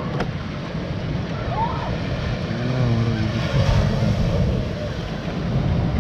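Steady low rumble of wind on the microphone mixed with small waves washing onto the beach.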